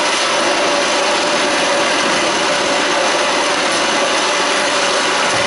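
Water polo players swimming hard and splashing in a pool: a steady, dense wash of churning water. It is the drill video's sound, played back over a hall's loudspeakers.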